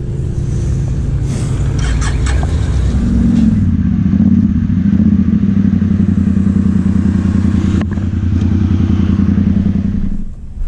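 Polaris Sportsman ATV engine pulling away and running along a dirt trail. It gets louder and holds a steady pitch about three seconds in, then eases off just before the end.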